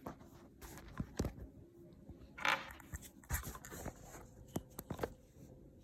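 Small clicks and scrapes of plastic being handled as a wireless earbud is pressed into its slot in a smartwatch band, with a brief rustle about halfway.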